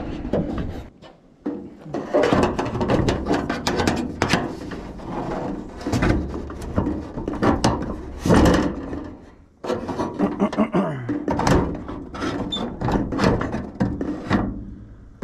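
Metal gutter hanger brackets being worked back under the gutter lip by hand, close up: a run of clicks, knocks and scraping rattles of metal on metal.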